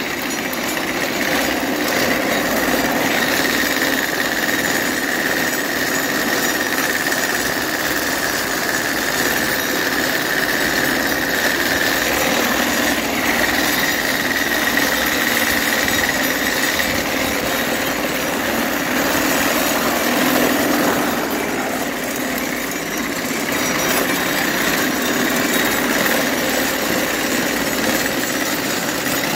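Horse-drawn sickle-bar mowing machine running in gear as the team pulls it, its cutter bar and gearing clattering steadily while it cuts grass.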